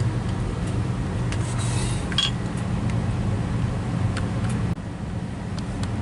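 Well pump running with a steady low hum as it builds water pressure toward the pressure switch's 60 psi cut-out. The level drops abruptly about three-quarters of the way through.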